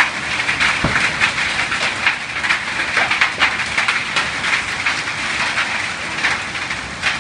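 Heavy rain falling on bare dirt and foliage: a loud, steady hiss broken by many sharp little hits.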